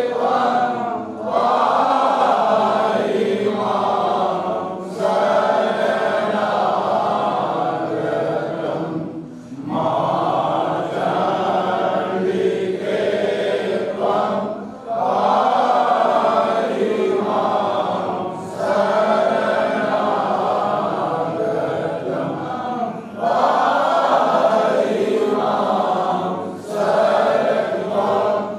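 A group of men's voices chanting a Hindu devotional hymn together in unison, in sung phrases of about four seconds with brief breaks for breath between them.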